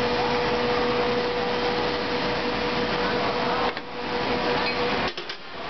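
Vertical injection moulding machine running with a steady hum and hiss; the noise drops away about five seconds in, followed by a few light clicks.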